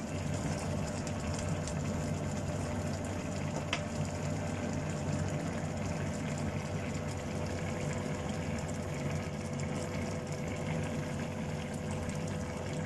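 Coconut-milk vegetable stew (sayur lodeh) simmering in a wok on an induction cooktop: steady low bubbling, with a faint steady hum underneath.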